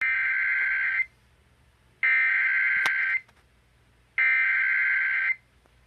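Emergency Alert System SAME header: three bursts of digital data tones, each about a second long with about a second between them, encoding a flash flood warning.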